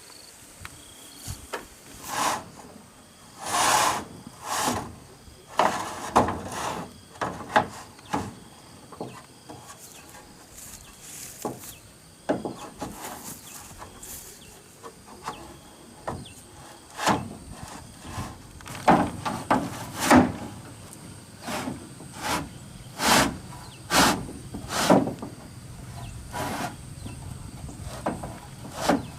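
A hand digging tool repeatedly chopping and scraping into grass and soil: irregular strikes, some with a short rasping scrape, coming in runs with brief pauses.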